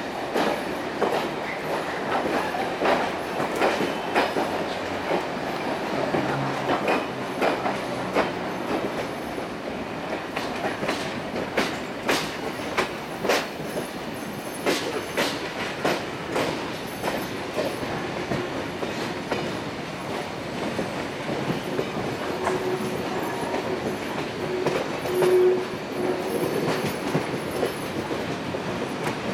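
Steam-hauled heritage passenger train moving slowly, heard from beside its carriage: steady rolling rumble with irregular sharp clicks as the wheels cross rail joints and points, and a short steady tone a little past the middle.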